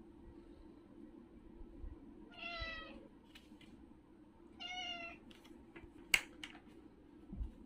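A domestic cat meows twice, each meow just under a second long, over a steady low hum. About six seconds in there is a sharp click, the loudest sound, and a low thump comes near the end.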